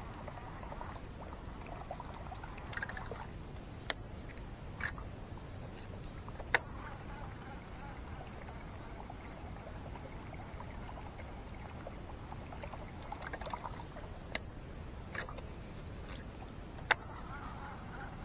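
Steady outdoor background noise with a few sharp, single clicks spaced seconds apart, and some softer short rustles between them.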